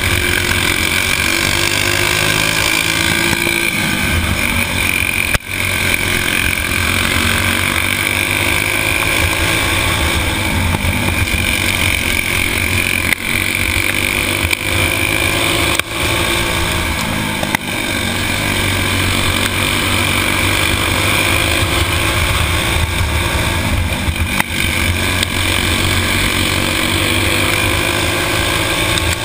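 Stock four-stroke racing kart engine running hard under race load, heard from onboard. The level drops briefly about five times.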